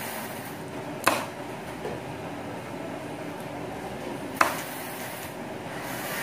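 Large kitchen knife chopping crispy fried pork belly on a wooden cutting board: two sharp knocks of the blade striking the board, about three seconds apart, over a steady background hum.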